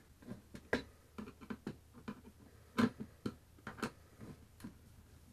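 Irregular light clicks and taps of a screwdriver working a screw into a 3D-printed plastic part, the loudest a little under 3 s in.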